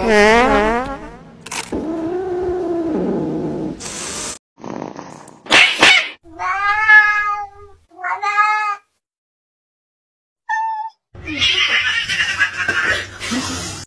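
Domestic cats meowing and yowling: a wavering, drawn-out cry at first, then several short meows. After a brief gap, a harsh, noisy stretch comes near the end.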